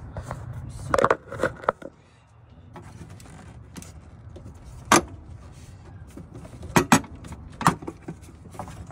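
Scattered sharp clicks and knocks of car parts being handled and fitted by hand as a fuel filler neck and its cover plate go back in: a cluster about a second in, a single loud knock near the middle, and a quick pair a little later.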